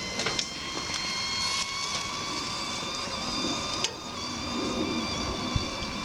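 Fresh New Mexico chile pods roasting: a steady sizzle with a thin whistle at several pitches as they heat, broken by a few sharp pops, one about four seconds in.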